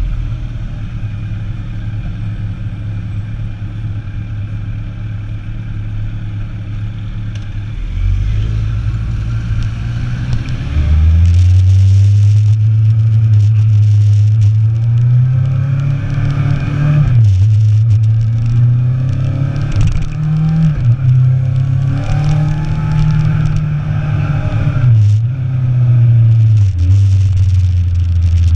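Motorcycle engine on a ride: steady for the first several seconds, then accelerating and louder from about ten seconds in, its pitch climbing and dropping several times as it shifts through gears.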